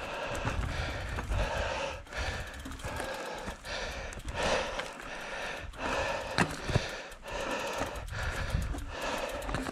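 Votec 29er mountain bike ridden along a rough trail: a steady rush of tyre, wind and frame-rattle noise that surges and dips about every two-thirds of a second, with two sharp knocks about six and a half seconds in.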